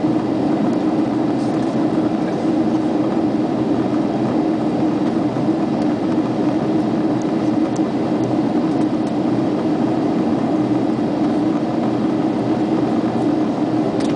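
Steady cabin noise of a jet airliner in flight on approach: the even drone of the engines and rushing air, with a low hum running through it.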